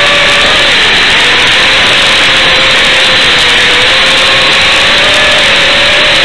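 Loud, steady hiss with a faint wavering whine underneath: the audio channel of an analog FPV video feed recorded by the goggles' DVR, carrying the 5-inch quadcopter's motors in flight.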